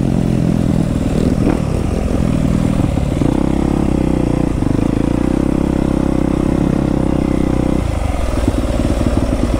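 Yamaha YZ250F dirt bike's single-cylinder four-stroke engine heard from aboard the bike: uneven throttle for the first few seconds, then a steady held note, then an abrupt drop to a lower, rougher note about eight seconds in as the bike backs off and slows.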